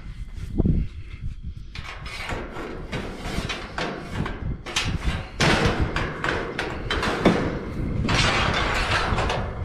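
Steel hog-trap and trailer gate being handled: repeated metal knocks, clanks and chain rattles. Two longer noisy stretches, one past the middle and one near the end, come from the hogs moving and jostling inside.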